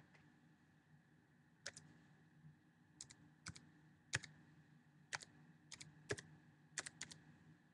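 Faint, irregular clicking of computer keys, about a dozen short presses with some in quick pairs, over a low steady hum.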